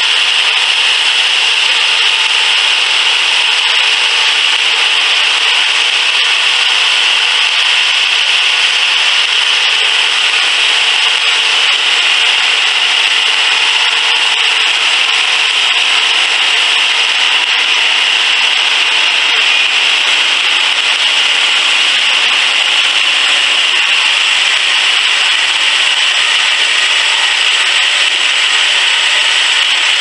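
Homemade bandsaw sawmill sawing lengthwise through a log: a steady, unbroken sawing noise from the blade cutting wood, with the mill's small engine running under it.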